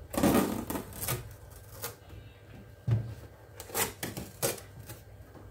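Hands handling a new air fryer and its packing: a short scraping rustle at the start, a low knock about three seconds in, then a few sharp clicks and ticks as the protective tape strips are peeled off the casing.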